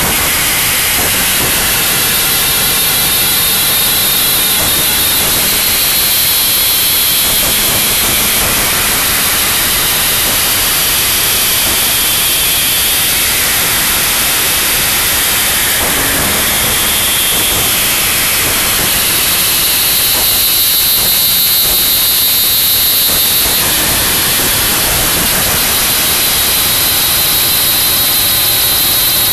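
Noise music: a loud, dense, unbroken wall of static hiss, steady in level, its texture slowly shifting with faint drifting bands of tone higher up.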